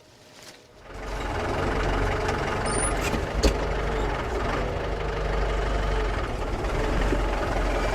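Kubota tractor's diesel engine running steadily, coming in abruptly about a second in, with one sharp knock about three and a half seconds in.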